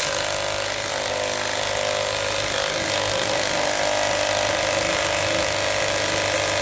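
Hercules 20V brushless mid-torque cordless impact wrench on high, its hammer mechanism impacting steadily without a break on a lug nut torqued to 240 ft-lb. The nut has not yet broken loose: the wrench is struggling at the limit of its breakaway torque.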